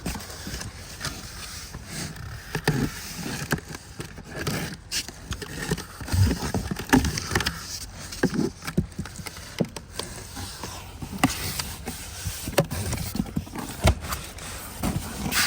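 Irregular handling noise from a cardboard box being opened and unpacked: scraping, rustling and scattered knocks and clicks.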